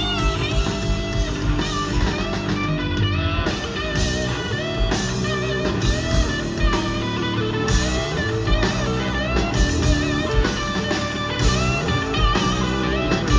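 Live rock band: a lead electric guitar solo on a Stratocaster-style guitar, with bent and wavering notes, over steady drums and bass.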